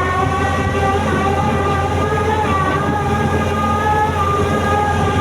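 Sany drilling rig running under load: a steady low engine hum with a whine of several tones that wavers slowly up and down in pitch.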